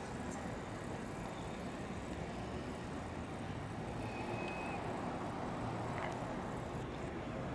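Steady rumble of road traffic, vehicles passing at a street intersection, with a brief faint high tone about four seconds in.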